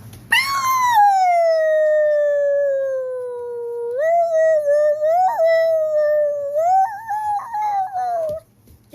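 A long howl: one unbroken call that slides slowly down in pitch for about four seconds, then rises and wavers before breaking off near the end.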